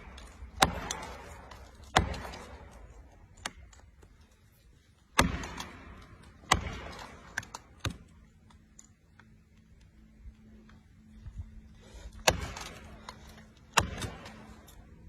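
Heavy blows struck while felling a tree: about eight sharp strikes at uneven intervals, each followed by a short echoing tail, with a faint steady hum under the later strikes.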